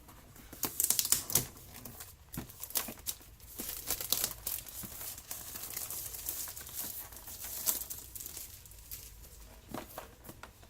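Plastic packaging crinkling and tearing as a product box is unwrapped by hand: irregular crackles and rustles, loudest about a second in.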